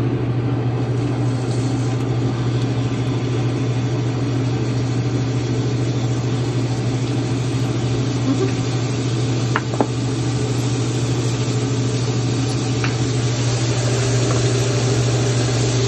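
Raw ground-beef patties sizzling as they are laid into a hot frying pan one by one, over a steady low hum.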